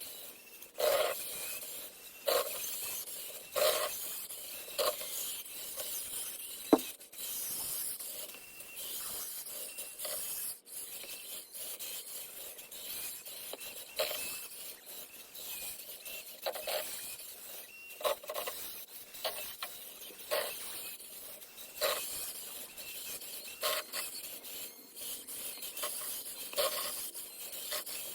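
Scraping and rasping of a 1/14-scale Huina RC wheel loader's bucket scooping and pushing snow on a sidewalk, in short bursts repeating every second or two.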